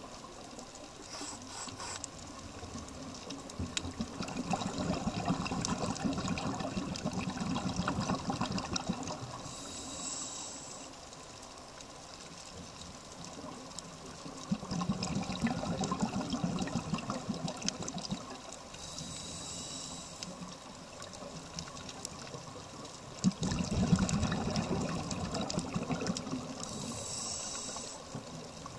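Scuba diver breathing through a regulator, heard underwater: a short hiss on each inhale, then a longer bubbling rush as the exhaled air leaves, about three breaths roughly nine seconds apart.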